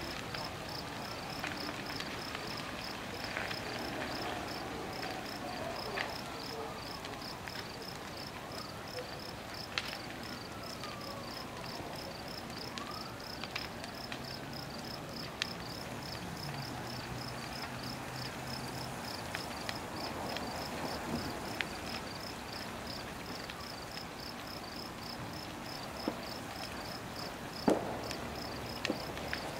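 Crickets chirping steadily in a fast, even high-pitched rhythm over the crackle and sharp pops of a large fire burning old lumber and trees, with a louder pop near the end. A distant siren wails faintly about halfway through.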